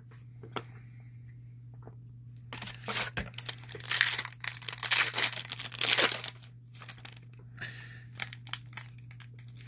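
A trading-card pack wrapper being torn open and crinkled, in a few seconds of rustling, tearing bursts in the middle, with small clicks of handling before it.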